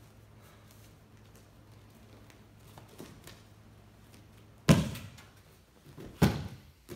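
Two heavy thuds on padded gym mats about a second and a half apart during a grab-and-takedown self-defense drill, the second as the attacker is pulled down by the leg and falls onto the mat. A few faint knocks of bare feet on the mat come before them.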